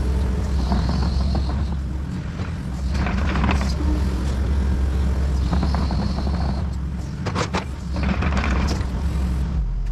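Tracked excavator's diesel engine running steadily under load, with a high whine twice for about a second each and repeated crunching, scraping noises from the work.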